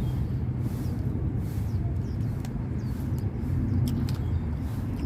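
A steady low outdoor rumble, with faint bird chirps and a few light clicks around the middle.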